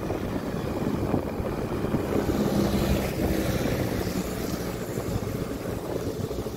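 A two-wheeler's engine running steadily while riding, with wind rushing over the microphone.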